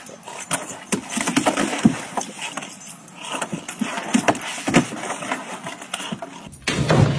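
Irregular knocks and scrapes of an English bulldog's paws on a hollow plastic playground slide as it clambers onto it. Near the end a louder, deeper noise cuts in suddenly.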